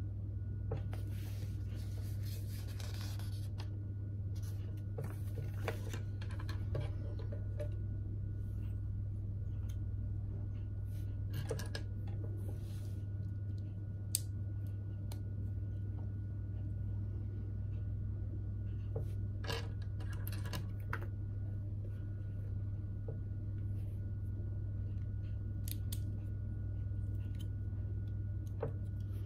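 LEGO plastic bricks being handled and pressed together by hand: scattered small clicks and rustles, over a steady low hum.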